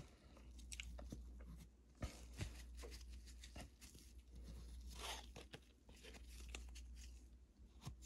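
Faint rustling and light clicks of a 2023 Prizm football value pack and cards being handled with gloved hands, with a short tear of the pack wrapper about five seconds in.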